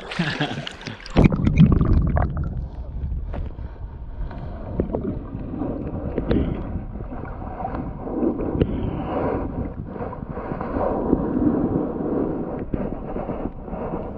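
Muffled underwater sound from an action camera plunged into a shallow stream. There is a brief splash as it goes in about a second in, then a low rumble of water moving against the housing with small scattered clicks and knocks.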